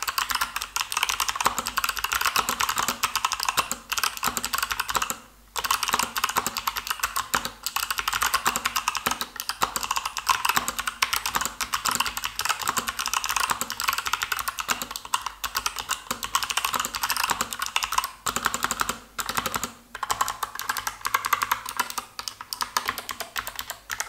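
Fast typing on a Motospeed CK61 60% mechanical keyboard with clicky Kailh Box White switches: a dense, even stream of crisp clicks, each keystroke giving a double click. The typing breaks off briefly about five seconds in and again for a moment about three-quarters of the way through.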